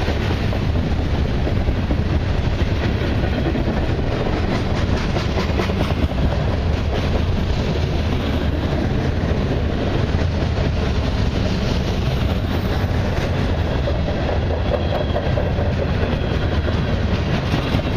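Freight train of boxcars rolling past at close range: a steady, loud rumble and clatter of steel wheels on the rails.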